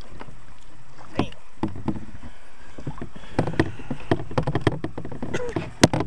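Irregular clicks and knocks of gear being handled in a kayak, thickest in the second half with one sharp knock near the end, over a steady low rush.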